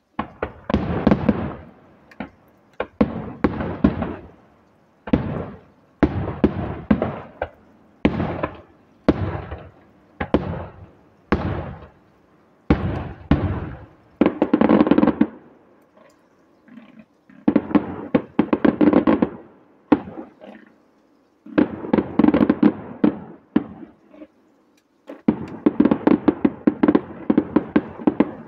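Aerial fireworks going off one after another, roughly a bang a second, each with a lingering echoing tail. There are spells of dense rapid crackling in the middle and near the end.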